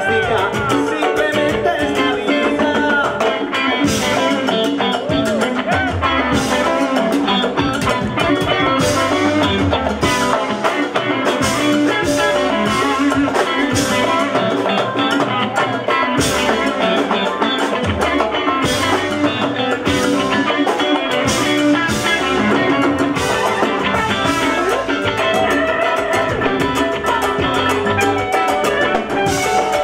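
Live salsa band playing, led by electric guitar over congas and drum kit, with a steady percussion beat.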